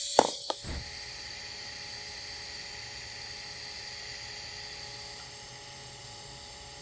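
TIG welding arc burning on a stainless steel T-joint at 134 amps: a steady, even hiss with a faint steady whine, after a couple of sharp clicks at the start.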